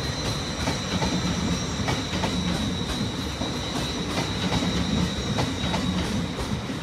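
Hull Trains Class 802 passenger train rolling past, its wheels clicking over rail joints in a steady run, with a low rumble and a thin, steady high whine.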